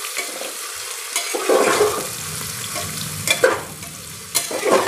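Sliced onions sizzling in hot mustard oil in a pressure cooker as a spatula stirs them. Three louder scrapes of the spatula against the pan sound over the steady frying hiss.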